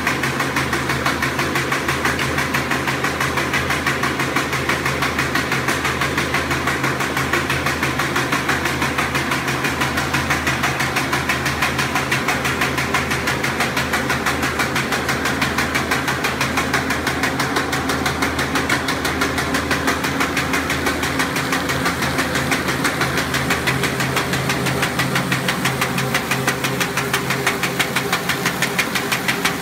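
V-bottom paper bag making machine running: a steady motor hum under a fast, even clatter of its mechanism as it forms paper bags.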